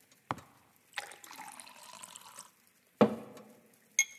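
A drink poured into a glass for about a second and a half, the pitch rising as the glass fills, after a light knock. Then comes a heavier thud as the bottle is set down, and a glass clinks with a short ring near the end.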